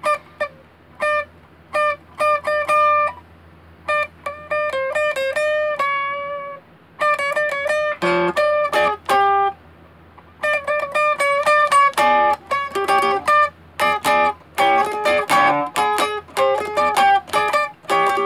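Plugged-in electric guitar played through an amplifier: short phrases of picked notes with brief pauses, turning faster and busier about ten seconds in, over a steady low hum.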